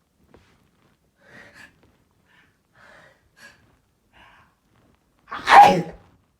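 A single loud, sudden sneeze about five seconds in, brief and sharp, after a few faint short breathy sounds.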